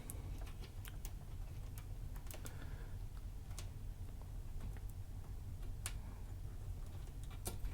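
Scattered light clicks and taps of an IC being handled and pressed into its socket on a circuit board, at irregular intervals.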